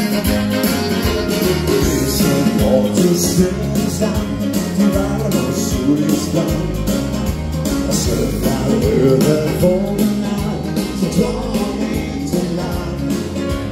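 Live dance-band song: a man singing over keyboards and a full band backing with a steady beat.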